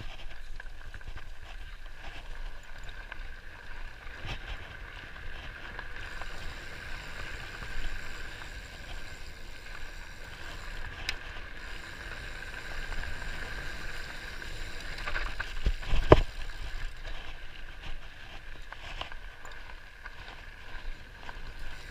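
Mountain bike descending dirt singletrack, heard from a camera on the bike: tyres rolling over dirt and small rocks with rattles over a steady high whirr. A sharp knock from a bump comes about sixteen seconds in, with a smaller one about four seconds in.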